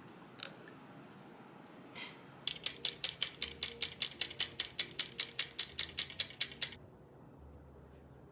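Round metal sieve tapped quickly by hand to sift flour into a mixing bowl: a fast, even run of sharp metallic taps, about five a second, starting about two and a half seconds in and stopping after roughly four seconds.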